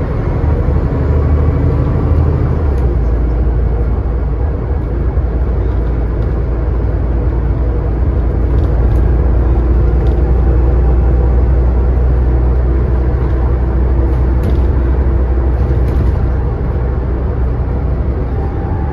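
Scania N94UD double-decker bus with a ZF Ecomat automatic gearbox running under way: a steady low engine drone with road rumble. The engine note shifts about three seconds in, and the sound swells in the middle before easing toward the end.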